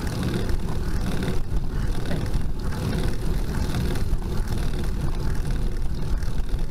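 Steady low rumbling noise from a road bicycle climbing slowly on asphalt: tyre and road noise with wind buffeting the bike-mounted camera's microphone.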